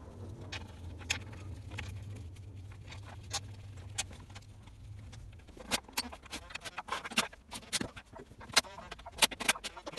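Sharp metallic clicks and taps of tools and bolts being worked on a Ford Dorset engine's sump, coming closer together and louder in the second half, over a low hum that stops about five seconds in.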